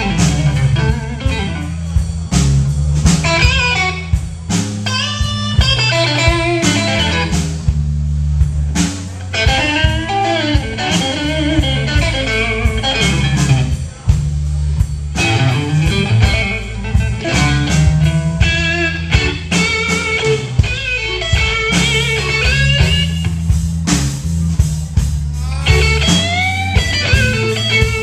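Live blues band: electric guitar playing lead lines with string bends over bass guitar and a drum kit, with no vocals.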